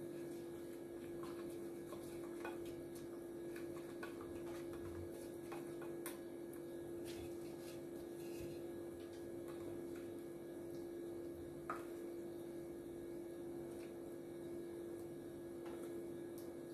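Small spatula scraping and tapping a stainless steel bowl while marinade is spooned onto raw chicken: faint, scattered clicks, one a little louder about twelve seconds in, over a steady low hum.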